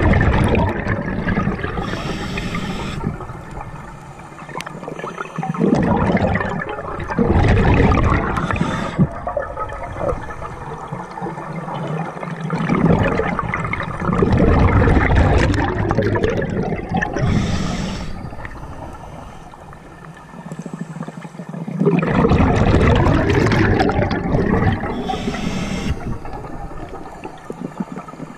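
Scuba regulator breathing underwater: about four long bursts of exhaled bubbles gurgling out, a few seconds apart, with short hisses between them.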